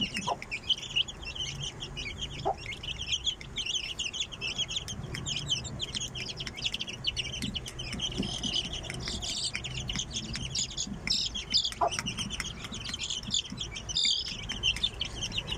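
Aseel chicks peeping nonstop, a dense chorus of short, high chirps, with a hen's low clucking beneath.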